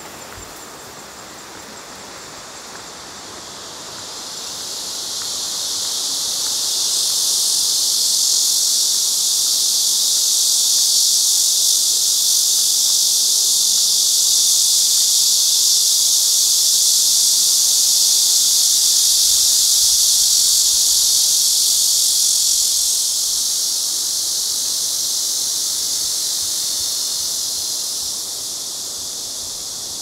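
Cicadas calling in chorus: a loud, steady, high buzzing hiss. It swells in over the first several seconds and falls away in two steps near the end.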